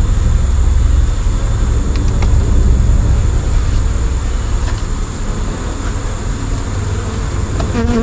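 Honey bee swarm buzzing, a dense steady hum of many bees, over a louder low rumble.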